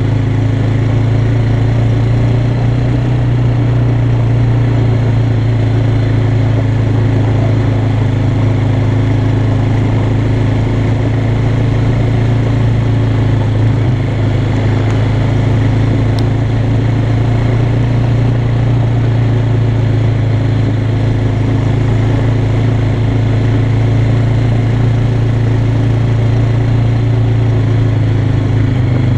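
Yamaha Bear Tracker 250 quad's single-cylinder four-stroke engine running at a steady pace under way, with an even note that neither rises nor falls.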